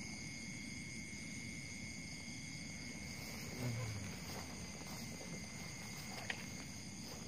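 Night insects, crickets among them, calling in several steady high tones, over a low rustle of movement through grass. A short low thump about halfway through and a sharp click near the end.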